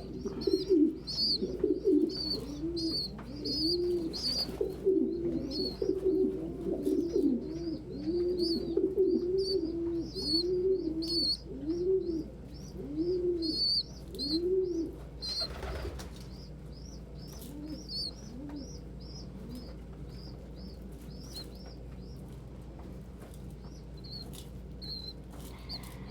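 Pigeons cooing: a low coo repeated over and over, about one and a half a second, stopping about halfway through, with quick high chirps going on throughout. A brief burst of noise about halfway.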